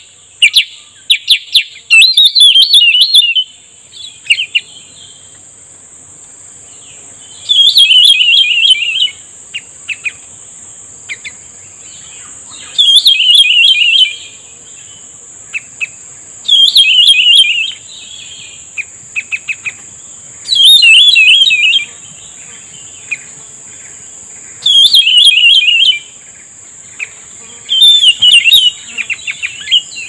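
Cucak rumbai tungging calling over and over: a rapid, warbling phrase about a second and a half long, repeated roughly every four seconds, with short sharp chirps in between, its lure call to draw in wild birds. A steady high insect drone runs underneath.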